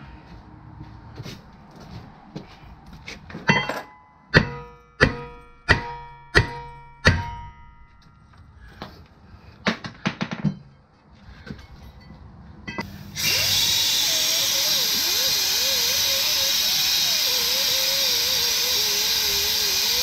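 About six hard hammer blows on a rust-stuck brake rotor, each leaving a metallic ring, followed by a few lighter knocks. Then a cordless drill starts up, driving a hub cleaning disc against the rusty hub face: a loud, steady abrasive rasp with a wavering motor whine.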